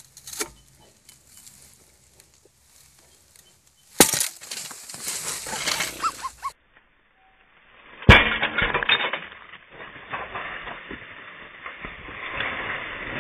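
A sharp crack as the rock around a fire-damaged glue-in U-bolt breaks out under a hydraulic pull tester, followed by a couple of seconds of rattling rock fragments and metal clinks: a rock failure, not a bolt failure. The crack and rattle are heard again about four seconds later.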